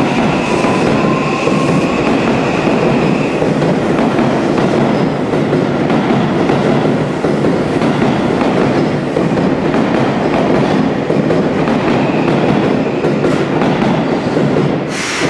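Electric train running past on the adjacent platform track, a loud steady rumble of wheels clattering over rail joints, with a motor whine rising over the first couple of seconds.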